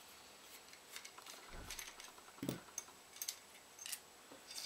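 Faint, scattered small clicks and light knocks of a screwdriver backing out screws and a plastic computer fan being worked loose from an aluminium heatsink, with a couple of soft thuds about two seconds in.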